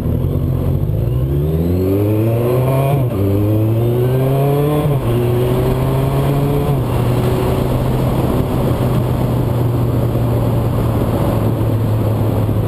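Suzuki Bandit 1200S inline-four engine accelerating. Its pitch climbs and then drops at gear changes about three and five seconds in. It eases off near seven seconds into a steady cruise, with wind rush over the microphone.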